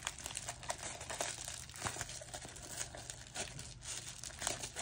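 Plastic bubble-wrap packaging crinkling and tearing as it is pulled open by hand, a steady run of small crackles.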